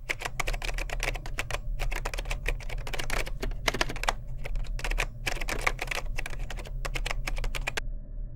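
Rapid typing on a computer keyboard, a dense run of key clicks that stops near the end, over a steady low hum.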